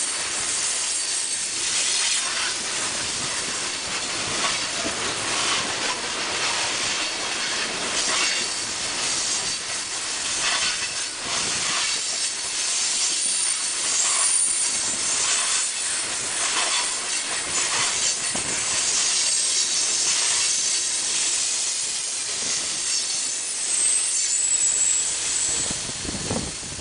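Freight train hopper cars rolling past at close range: a steady hiss and rumble of steel wheels on rail, with a faint high wheel squeal at times. It eases off near the end as the last car goes by.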